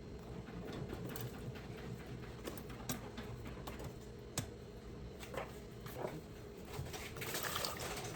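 Kitchen handling sounds: scattered light clicks and knocks over a steady low hum, with a short rush of noise near the end.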